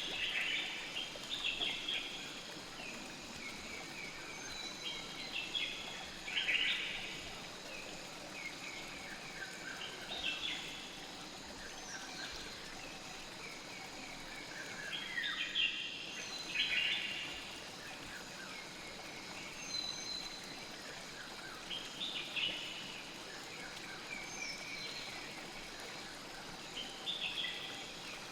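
Bird chirps in short clusters every few seconds over a steady rushing hiss of flowing river water, as a layered night-forest ambience.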